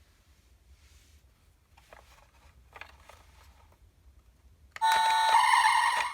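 Faint handling noises, then about five seconds in a children's sound book's electronic sound module plays a short, loud, tinny sound effect of steady electronic tones with a musical edge, which stops abruptly after about a second.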